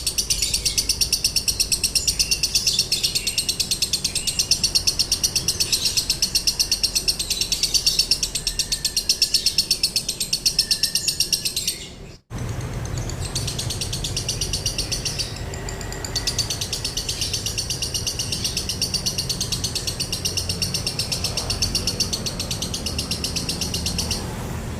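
Lovebird giving a long, rapid, nonstop chattering trill of the 'konslet' kind, the fast unbroken ngekek prized in Indonesian songbird training recordings. It breaks off suddenly for an instant about twelve seconds in, then picks up again.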